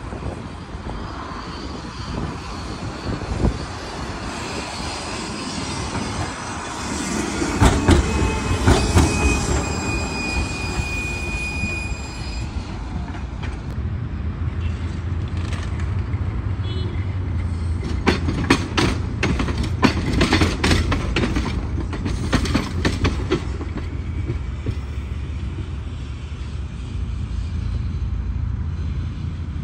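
Trams running along street track: clusters of sharp knocks as the wheels roll over rail joints, the first cluster followed by a thin, steady, high wheel squeal, over a low steady hum of motors and street traffic.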